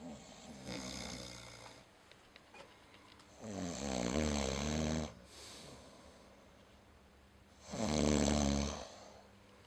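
Snoring: a softer snore about a second in, then two stronger snores around four and eight seconds in, each lasting about a second and a half.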